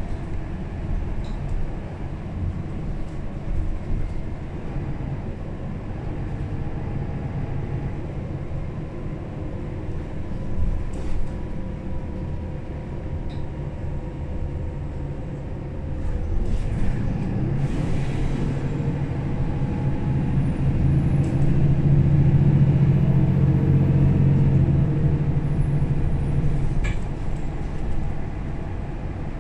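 Mercedes-Benz O530 Citaro Facelift city bus heard from inside on the move, its diesel engine running at low load. About sixteen seconds in there is a short hiss of air. The engine then grows louder and works harder for about ten seconds, then eases off near the end.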